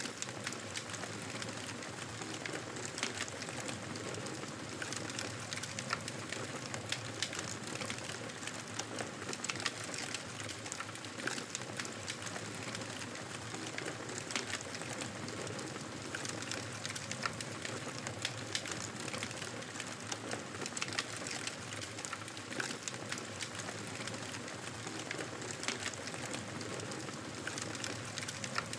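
Campfire burning: a steady hiss of flames with frequent sharp crackles and pops of burning wood.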